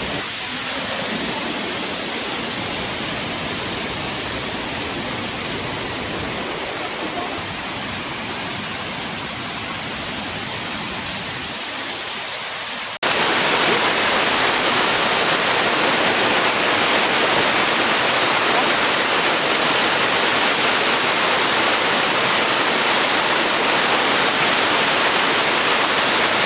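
Waterfall rushing, a steady wash of falling water; about halfway through it cuts to a louder, brighter rush, as if heard much closer to the falls.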